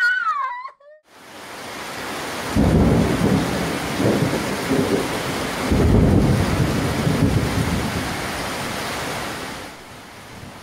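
A wailing cry that breaks off in the first second, then heavy rain fading in. Two long rolls of thunder come about two and a half and six seconds in, and the rain eases to a softer steady fall near the end.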